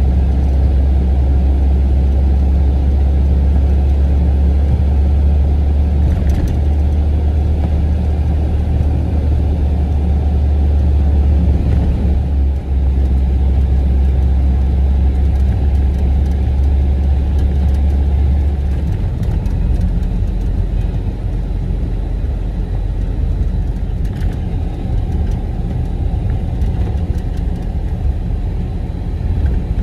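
Truck engine and road noise heard from inside the cab while driving on a snowy road: a steady low drone that drops to a lower pitch about two-thirds of the way through.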